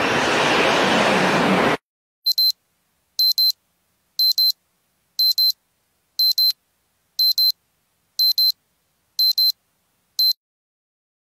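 A rising whoosh of noise that cuts off suddenly about two seconds in. Then high electronic double beeps, like a digital alarm clock, once a second nine times, the last one single: a countdown sound effect.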